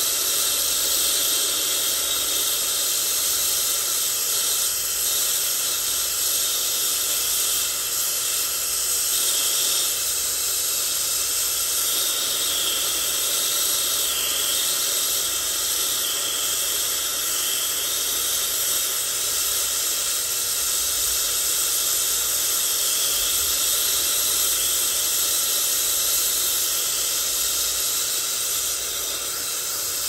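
Brazing torch flame hissing steadily as it heats a copper refrigerant-line joint, brazing over a refrigerant leak.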